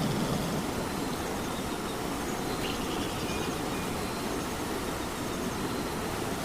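Steady rain falling, an even rushing noise at a constant level.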